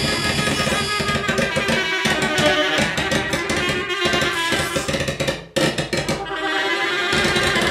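Free-improvised music from a turntable, synthesizer and saxophone trio: a dense, busy texture of rapid percussive clicks and sustained pitched tones. It breaks off for an instant about five and a half seconds in.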